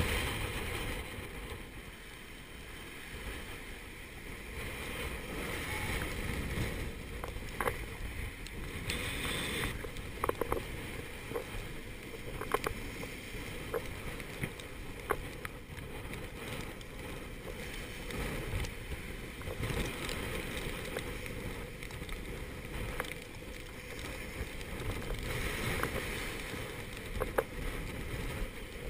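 Gale-force wind and breaking seas rushing past the stern of a Contessa 32 sailboat running downwind. The sound is a steady, heavy rush of wind and water, with louder hissing swells of spray every several seconds. Short sharp knocks come through now and then.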